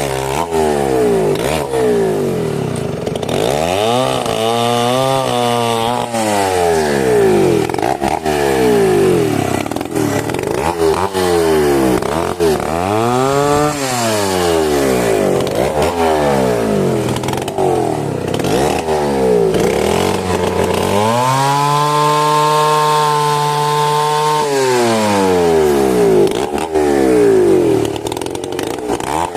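Two-stroke chainsaw cutting mahogany, its engine pitch rising and falling again and again. About three-quarters of the way through it holds at high revs for a few seconds, then drops back.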